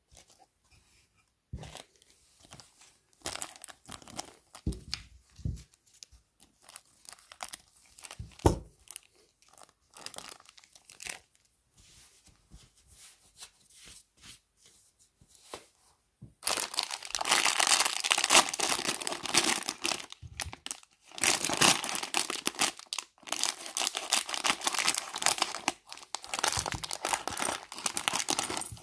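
Clear plastic bags of small Playmobil parts being handled: scattered crinkles, clicks and a few soft knocks at first, then, from a little past halfway, continuous loud crinkling and tearing as a bag is torn open.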